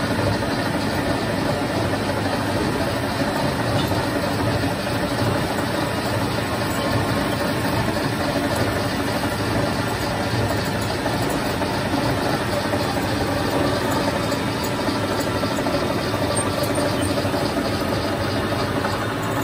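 Metal lathe running, turning a steel pin while the cutting tool takes a cut: a steady machine drone with cutting noise.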